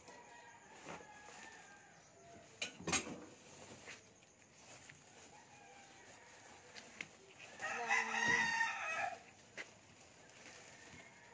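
A rooster crowing once, a loud pitched call about a second and a half long, about eight seconds in. A couple of sharp knocks come about three seconds in.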